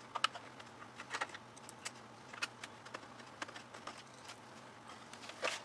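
Scattered small clicks and taps of a screwdriver and of plastic and metal parts being handled, as screws are taken out of an LCD TV's frame.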